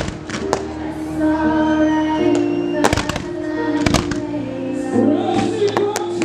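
Fireworks going off in sharp bangs, some in quick pairs, over loud music with sustained chords.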